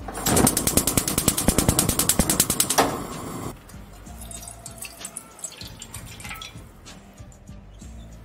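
Gas stove burner's igniter clicking rapidly for about three seconds, then water poured into a nonstick frying pan, splashing and dripping more quietly.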